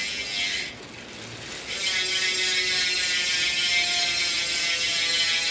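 DT Swiss 370 rear hub with a 54-tooth star ratchet freewheeling as the wheel spins: a steady, fine ratcheting buzz. It drops out for about a second shortly after the start, then returns louder and holds steady.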